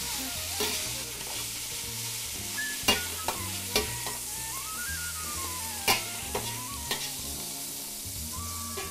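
Browned veal sizzling in fat in a stainless steel pot, with a metal skimmer clinking against the pot about half a dozen times as the meat is scooped out. The loudest clinks come about three and six seconds in.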